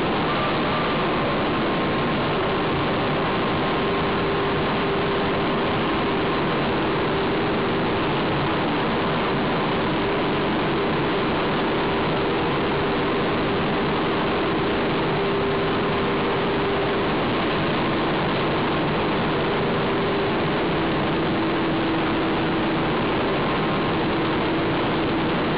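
Hot-rolling steel mill's first stand running with a glowing billet passing through its rolls: a loud, steady industrial noise with a faint hum that drops a little in pitch about two-thirds through.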